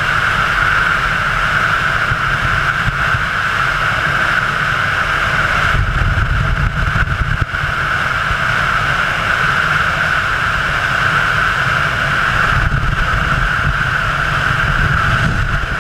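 Freefall wind rushing over a helmet-mounted camera's microphone: a loud steady rush with a high whistle-like band in it and low buffeting, the buffeting heavier for a moment about halfway through.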